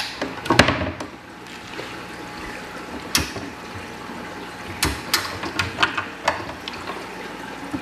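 Scattered clicks and knocks of a wooden aquarium cabinet's doors being handled and opened, over a steady low hum.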